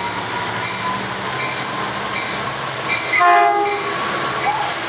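Diesel passenger locomotive passing close along a station platform with the steady rumble of the train, and one short horn blast about three seconds in.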